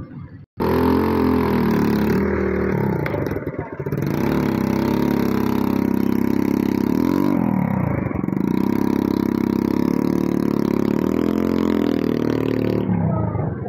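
Small motorcycle engine running close up, its pitch rising and falling as it is revved, with a dip and recovery about eight seconds in.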